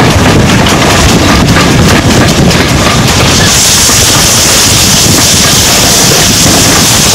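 Loud wind buffeting on a microphone held out of a moving steam-hauled train, over the rumble of the train running along the track. A steady high hiss joins about three and a half seconds in.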